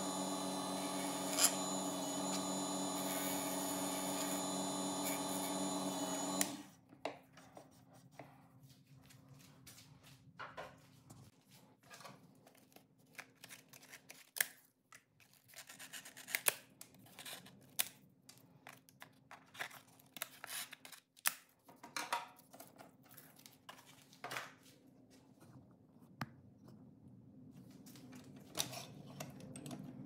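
A WEN mini wood lathe runs steadily while a turning tool cuts the spinning pen blank, and the motor shuts off about six seconds in. After that, scissors snip strips of abrasive from a roll of sandpaper, with scattered clicks, crinkles and rustling of the abrasive.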